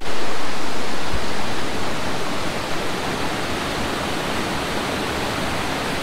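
Waterfall rushing in a steady, loud roar of falling water, running strong after the rains; slightly louder in the first second, then even.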